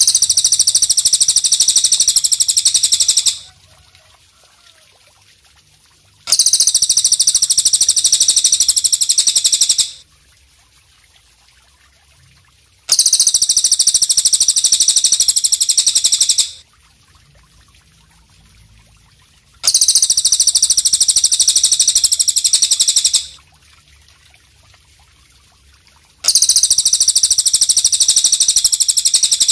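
A high, rapid buzzing trill in identical bursts of about three and a half seconds, repeating every six and a half seconds: a looped song-tutoring recording for training caged songbirds.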